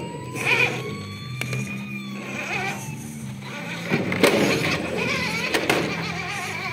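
Scale RC crawler's electric motor and gearbox whining, the pitch rising and wavering with the throttle as the truck climbs over a wooden root. A few sharp clacks of the tyres and chassis come down on wood.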